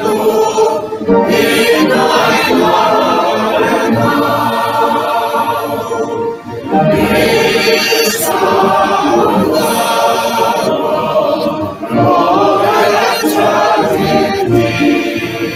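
Congregation singing a Welsh hymn in long phrases, with brief breaks between lines about six and twelve seconds in.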